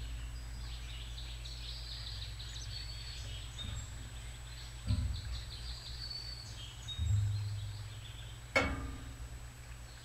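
Small birds chirping and trilling throughout, with a few dull thumps about five and seven seconds in and a sharp click near the end from chickadees landing on and pecking at a metal-perched tube feeder.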